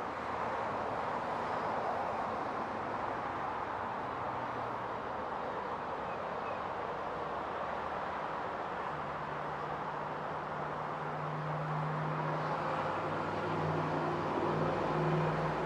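Steady motor-vehicle noise. A low engine hum comes in about halfway through and grows louder toward the end.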